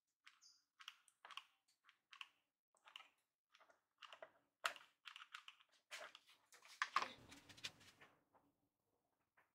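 Hands handling a plastic power supply brick against the cutting machine's frame: a scattered string of light clicks, taps and scrapes, busiest about six to eight seconds in.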